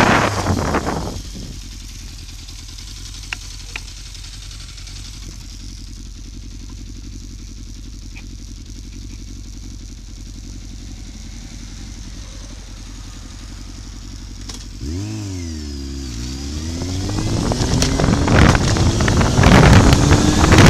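Motorcycle engine slowing to a steady idle as wind noise on the microphone dies away. About fifteen seconds in the engine revs and the bike pulls away, the engine note rising steadily as it accelerates and the wind noise builds again.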